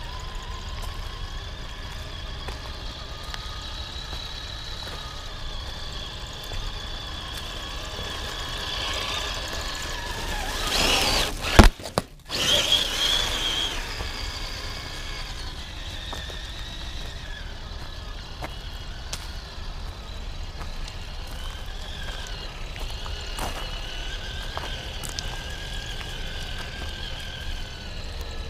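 Traxxas TRX-4 Sport RC crawler's brushed electric motor and gearbox whining as it drives, the pitch drifting with throttle. A loud knock with a brief cut-out comes about halfway through.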